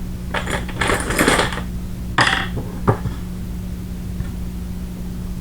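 Small metal gun parts and tools handled on a workbench: a short rattle and a few sharp clinks in the first three seconds, then only a steady low hum in the background.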